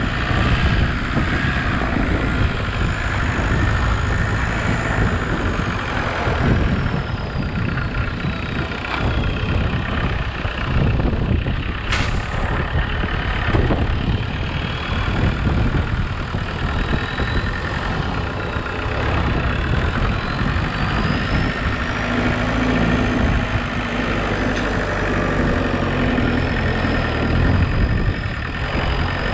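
Homemade 4x4 tractor's engine running steadily while the tractor drives and works its front-loader hydraulics. A thin high whine slowly rises and falls in pitch, and there is a single sharp click about twelve seconds in.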